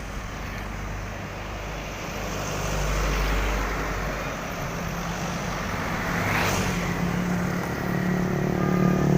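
Roadside traffic: a heavy vehicle's engine running with a low drone that grows louder as it approaches, with a brief rushing hiss about six and a half seconds in.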